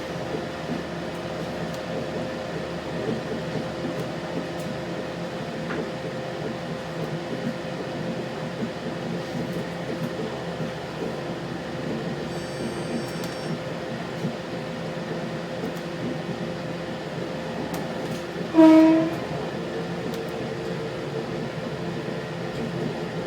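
Steady running noise of a 3100 series diesel railcar heard from inside the carriage, with a steady hum. About three-quarters of the way through, the train's horn gives one short, loud blast.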